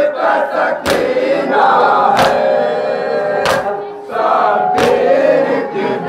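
A crowd of men chanting a noha together while beating their chests in unison (matam): a sharp, loud slap about every 1.3 seconds, five in all, over the sustained group chant.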